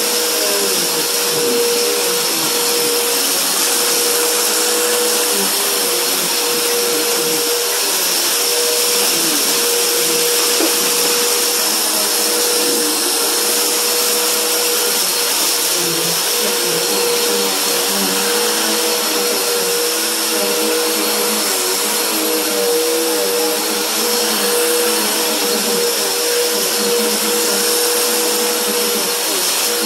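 Bissell PowerForce bagless upright vacuum cleaner running steadily with a constant motor whine over a rushing hiss. Its head is pushed over a low-pile rug, sucking up fine powdery dirt.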